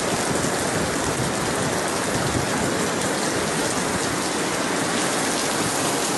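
Heavy rain pouring down on a wet street, a steady, even hiss.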